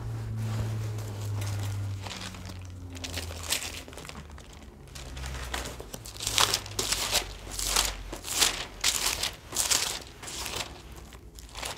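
Thin Bible pages being leafed through: a run of quick papery rustles and crinkles, busiest in the second half.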